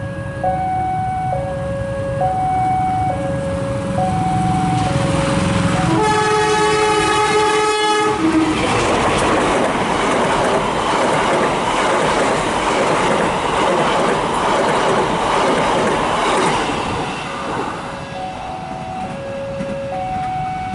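A two-tone railway warning alarm alternates between a low and a high note. A locomotive's multi-note horn sounds for about two seconds, about six seconds in. The train then rushes past with clattering wheels for about nine seconds, and the two-tone alarm is heard again near the end.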